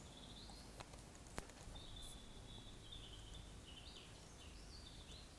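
Faint bird chirping in the background over quiet room noise, with a small click a little under a second in and a sharper click about a second and a half in.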